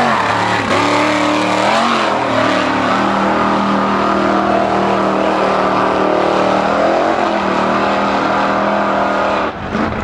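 Mud-racing truck's engine at high revs, its pitch dipping and climbing twice in the first two seconds, then held at a steady full-throttle note as it runs through the mud pit.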